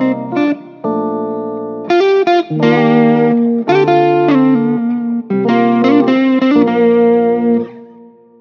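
Background music with a melody of held, changing notes, fading out near the end.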